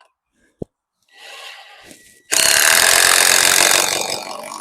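A sharp click, then a power drill starting with a faint whine and working into pallet wood, turning to a loud grinding noise for about two seconds.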